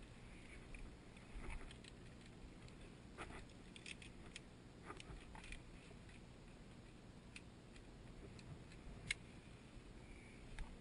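Faint, scattered metallic clicks and ticks from via ferrata carabiners and lanyard knocking against the steel safety cable as the climber moves along it. The sharpest click comes about nine seconds in.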